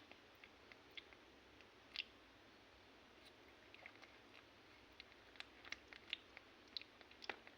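Faint, irregular small clicks and ticks over low background hiss.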